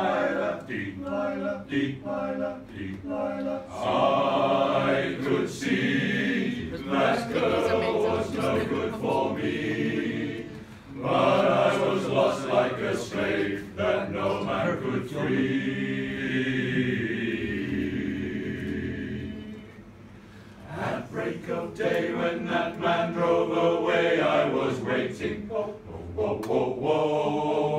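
Welsh male voice choir singing a cappella in harmony. The singing drops away briefly about eleven seconds in, and again for about a second around twenty seconds.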